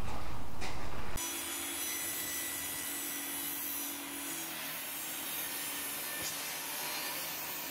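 A benchtop table saw cutting a 1-inch pine board, a steady hissing cut that runs on after a sudden change about a second in. The first second holds a louder, rough noise.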